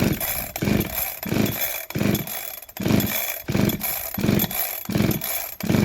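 Two-stroke chainsaw, a Husqvarna 372XP clone, running on a new carburettor that is still being tuned. It runs unevenly, surging up and back about every three-quarters of a second instead of holding a steady speed.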